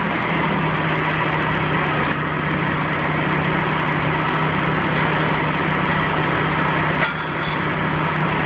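Crane engine running steadily under load as it hoists a rooftop air-conditioning unit, a constant low hum over a broad mechanical drone. A single short knock about seven seconds in.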